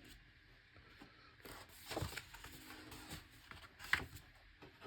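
Faint rustling of large paper pages being handled and turned in an oversized hardcover art book, with a short sharp click about four seconds in.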